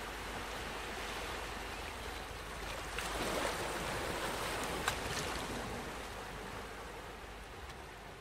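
A steady rushing background noise that swells slightly about three seconds in, with a single short click near the five-second mark, then slowly fades out.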